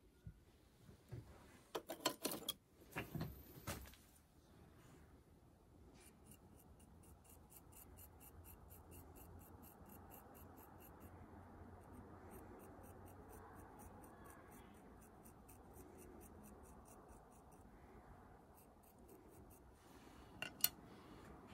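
A pointed potter's tool scratching back and forth over a clay surface, scoring it in rapid, even strokes of about four a second. A few knocks and clatters come about two to four seconds in.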